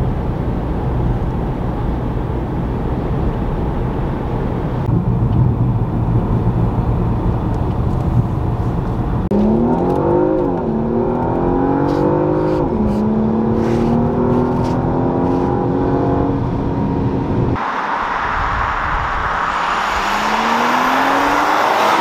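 Porsche Macan S's twin-turbo V6 and road noise rumbling steadily while cruising. About nine seconds in, the engine accelerates, its note climbing and dropping back at two upshifts before it holds a steady rising pull. Near the end a car approaches with rising tyre hiss and engine note.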